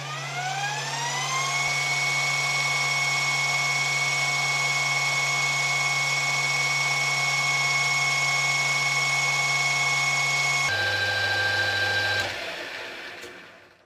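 Electric sugar grinder's motor spinning up with a rising whine, running steadily at high speed, then dropping to a lower pitch near the end before it is switched off and winds down.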